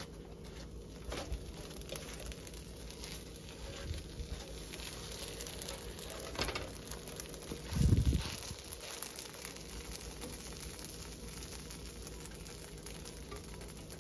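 Split bread rolls toasting on a hot griddle pan, a light crackling sizzle, with a few sharp clicks as they are handled and turned over. A loud dull thump comes about eight seconds in.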